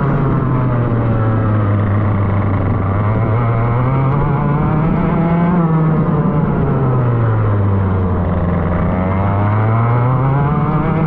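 Go-kart engine running hard, its pitch dropping and climbing twice as the revs come off and pick up again.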